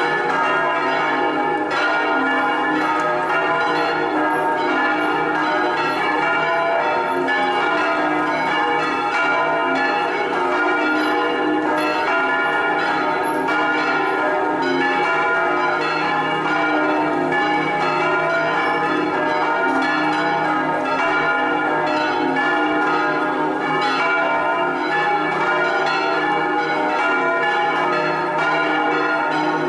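Swinging church bells of a six-bell peal in E-flat, all but the fourth bell, electrically swung and ringing together in a full festive peal (distesa). The strikes overlap in a continuous, steady clangour.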